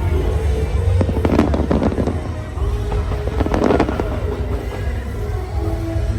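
Fireworks going off: clusters of bangs and crackles over loud show music with held notes.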